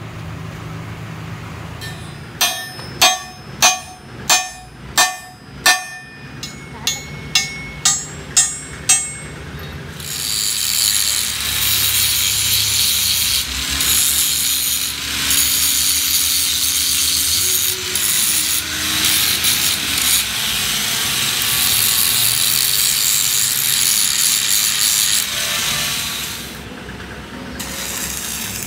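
About a dozen ringing hammer blows on steel in two quick runs, then an angle grinder grinding down the weld on a repaired truck front axle for about fifteen seconds, with small dips as the disc bites and lifts.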